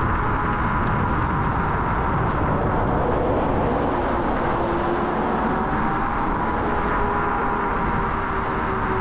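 Wind rushing over a chest-mounted action camera's microphone and road noise from an electric scooter riding at speed, with a faint steady whine that drifts slightly in pitch.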